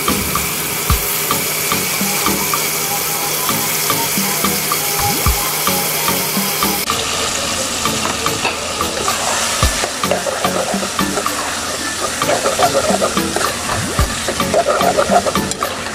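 Onion-tomato masala sizzling in hot oil in a metal pot. About seven seconds in the sound changes, as raw prawns go in, and a metal spoon then stirs and scrapes against the pot while the frying goes on.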